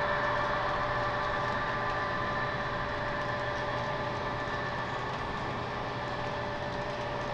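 HO-scale model freight train running along the layout track: a steady mechanical hum with rolling noise, slowly fading.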